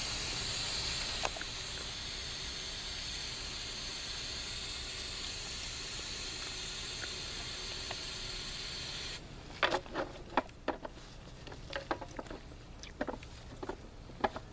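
Aerosol hairspray hissing steadily as it is sprayed into a combustion potato cannon's chamber, cutting off suddenly about nine seconds in. Scattered sharp clicks and knocks of handling follow.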